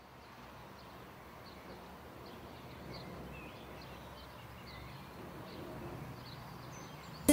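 Faint outdoor ambience fading in and slowly growing louder: a steady low background noise with scattered small bird chirps. Right at the end an acoustic guitar chord comes in.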